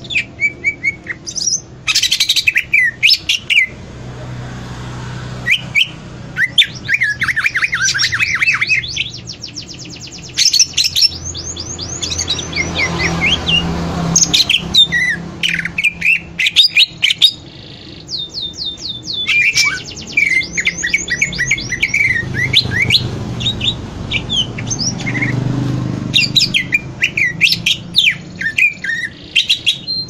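Caged male greater green leafbird (cucak ijo) singing loudly: a varied song of rapid, sharp whistled notes and fast trills, delivered in bursts with short pauses between.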